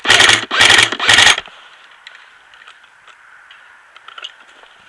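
Airsoft electric gun firing three short full-auto bursts close to the microphone, each a fast mechanical rattle lasting about a third of a second, all within the first second and a half.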